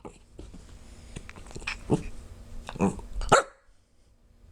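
A few short, sharp hiccups in the second half, each one brief and separate, the last the loudest.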